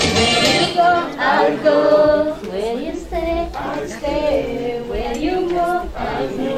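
A church choir of men and women singing together, several voices carrying one sung melody.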